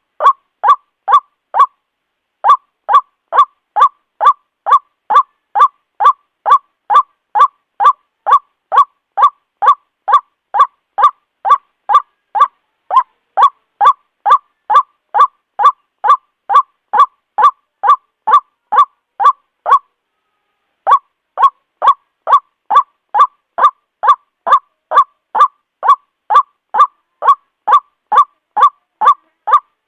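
White-breasted waterhen calling, a loud nasal "kwak" note repeated evenly about twice a second, with brief breaks about two seconds in and about twenty seconds in.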